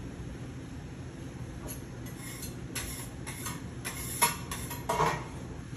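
Metal kitchen utensils clattering and scraping against cookware at the griddle: a run of short clinks and scrapes starting a couple of seconds in, the sharpest a little after four seconds, over the steady hum of the kitchen exhaust hood fan.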